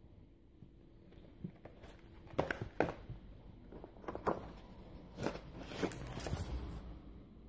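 Cardboard packaging being handled: several sharp taps and rustles as the inner cardboard flaps of a retail box are opened, then a longer crinkle of plastic wrapping about six seconds in.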